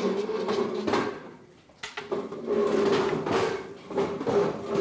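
Chairs dragged across the floor as people pull them out and sit down at a table: two long grating scrapes, the second starting about halfway through.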